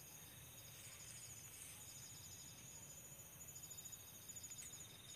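Faint chirping of night insects: several fast, steady pulse trains at a few different high pitches, overlapping and stopping and starting.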